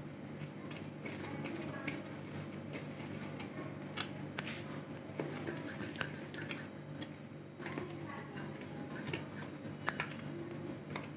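Metal wire whisk stirring dry flour in a bowl, its tines clinking and scraping against the bowl in quick irregular ticks, over a steady low hum.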